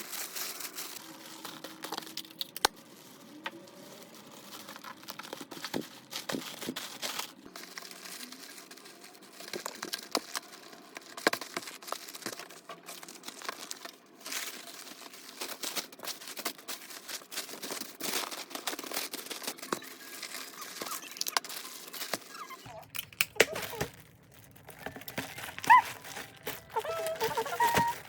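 Paper or plastic packaging crinkling and rustling in irregular bursts, with short tearing sounds, as gifts are handled.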